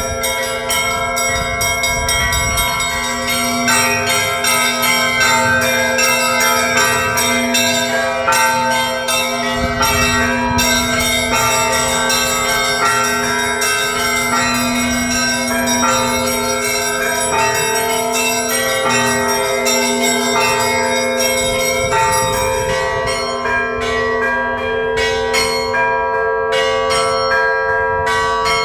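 Russian Orthodox church bells ringing a festal peal for Trinity: quick, dense strikes on the smaller bells over the steady hum of larger bells. The strikes thin out a little near the end.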